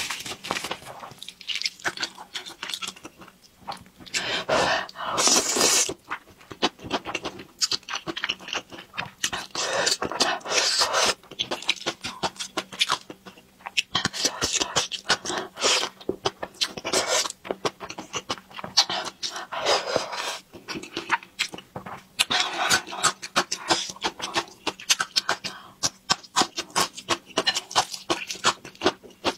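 Close-miked mukbang eating sounds: slurping and chewing thick spicy stir-fried rice noodles, with many wet mouth clicks and several longer slurps.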